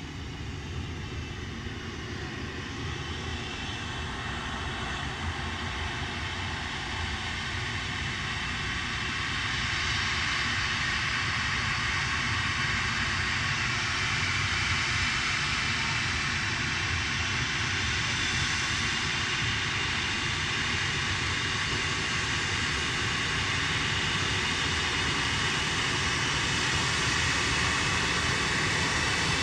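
Boeing 737 MAX 9's CFM LEAP-1B turbofan engines whining over a low rumble as the jet taxis toward the listener. The sound grows louder over the first ten seconds, then holds steady.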